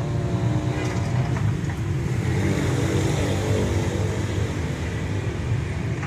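Steady low engine rumble running without a break.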